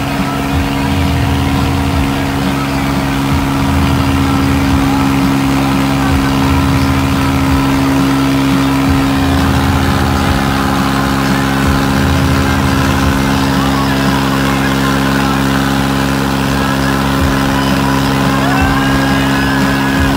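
Tractor diesel engines running steadily at road speed, heard from the driver's seat of one, with a second tractor running alongside. The engine noise gets a little louder a few seconds in.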